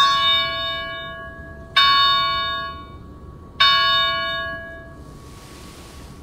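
Small altar bell (Sanctus bell) rung three times, about two seconds apart, each ring bright and fading out: the bell that marks the elevation of the consecrated chalice.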